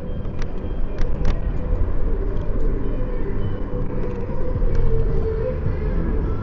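Steady low road and traffic rumble, with a few sharp clicks in the first second and a half.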